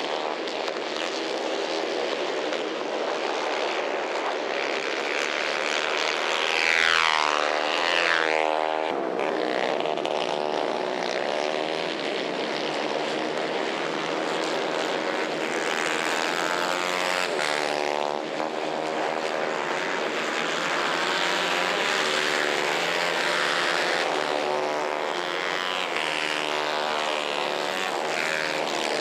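Several 150 cc racing kart engines running at high revs, their pitch sweeping up and down as the karts accelerate, lift off and pass. The loudest pass comes about seven seconds in.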